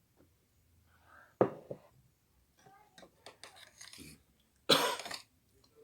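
A man coughing twice while eating, once about a second and a half in and again, longer, near the end, with quieter mouth noises between. The coughing comes from the chili heat of the fried rice.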